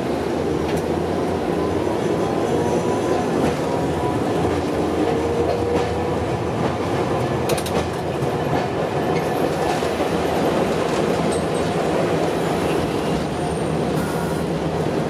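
Hiroshima tram running along its track: a steady rumble of wheels on rail with a faint whine that rises slowly in pitch. A brief high tone near the end.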